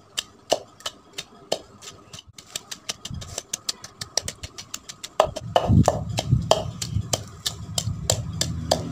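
A wooden pestle pounding chopped raw mango, onion, tomato and mint in a terracotta mortar, in quick regular knocks about four a second that grow louder about five seconds in. A low steady hum joins at the same point.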